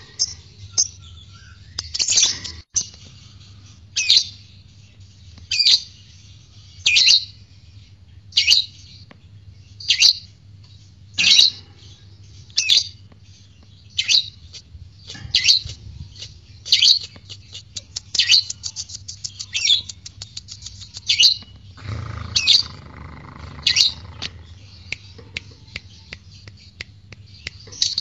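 Lovebird calling: loud, sharp high chirps repeated about every one and a half seconds, with a quick rattling run of clicks a little past the middle.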